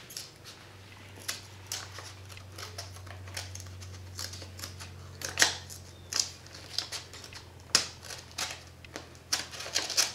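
A paper envelope being worked open by hand: scattered crinkles, rips and sharp clicks of paper, with a louder tear or snap about five seconds in and another near eight seconds, over a steady low hum.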